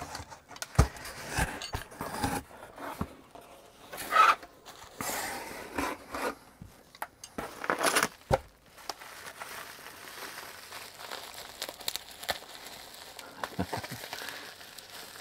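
A taped cardboard shipping box being pulled open, with irregular scraping and tearing of cardboard and packing tape through the first half, then quieter crinkling of plastic bubble wrap being handled.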